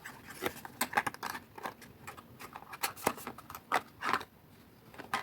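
Foil-wrapped chocolate coins being put into a small cardstock box: an irregular run of light clicks and paper rustles, with a few sharper ticks.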